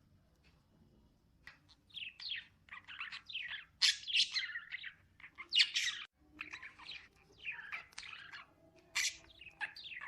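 Pet birds chirping and squawking in a quick, busy run of short calls, starting about a second and a half in, the loudest calls near the middle and again near the end.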